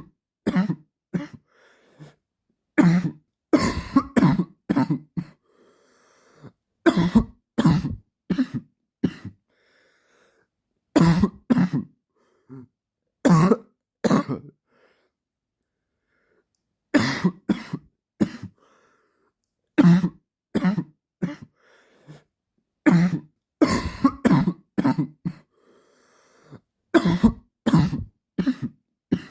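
A man's dry cough, repeating in fits: clusters of two to four short, sharp coughs every few seconds, separated by silent pauses.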